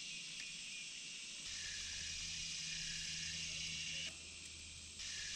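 Summer insects droning in the riverside trees, a steady high buzz with a fainter pulsing call repeating about once a second.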